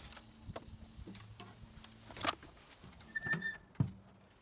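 Light metal clicks and taps of tongs and a steel charcoal grill, with a brief squeak a little after three seconds and a knock just before four as the grill lid is handled.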